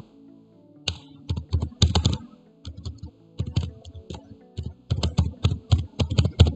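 Computer keyboard being typed on: sharp key clicks in quick, irregular runs with short pauses between them.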